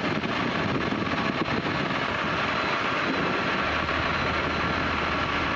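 Pioneer 300's flat-four Rotax engine and propeller running steadily at reduced power, heard inside the cockpit over the rush of airflow, with a low drone that grows stronger about two-thirds of the way through. Cylinders 2 and 4, cut out by a blocked main jet in the left carburettor, are firing again at this low power setting and the engine is running smoothly for the moment.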